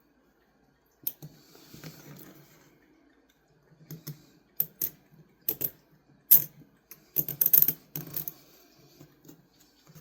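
Hand work at a bench: irregular sharp clicks and taps of small hard objects being handled and set down, with a stretch of scratchy rubbing about a second in and a quick run of clicks near the end.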